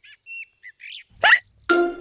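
Light birdsong: a few short, high chirps. About a second in comes one sudden, loud cartoon hiccup from Peppa, the sign that drinking her juice too quickly has given her hiccups.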